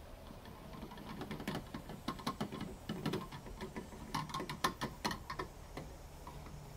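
Bottle of fuel system cleaner glugging as it drains upended through a funnel into a car's fuel filler: an irregular run of quick gurgles and ticks that thickens about four to five seconds in and dies away near the end.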